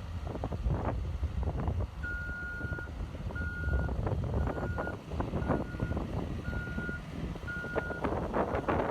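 CAT 416F backhoe backing up: its reverse alarm beeps six times, about once a second, starting about two seconds in, over the steady running of its diesel engine and some clatter.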